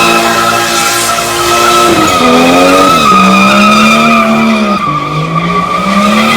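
A car skidding with its tyres squealing in a steady high screech while the engine revs, its pitch rising and falling, typical of a burnout or drift.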